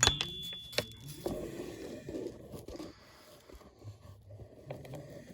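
Handling noise: a sharp clink with a brief high ring at the start, a few knocks, then a stretch of scraping and rustling.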